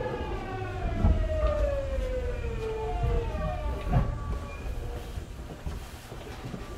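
Hitachi GTO-VVVF inverter of a Tokyu 9000 series train whining in several stacked tones that fall steadily in pitch as the train slows for the next station, heard inside the passenger car over wheel-on-rail rumble. The whine shifts and fades about four seconds in, with a couple of knocks from the running gear.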